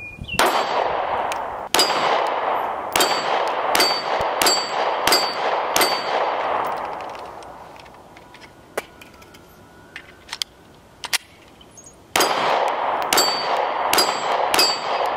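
9mm Glock 43 pistol fired in two quick strings of shots, each shot followed by a metallic clang and ring, as of rounds striking steel targets. The first string runs for about seven seconds, then there is a pause of about four seconds before the second string starts.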